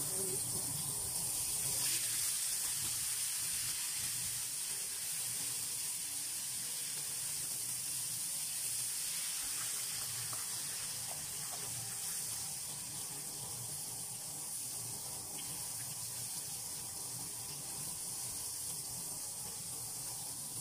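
Flour-coated fish fillets deep-frying in hot oil in a pan, sizzling steadily.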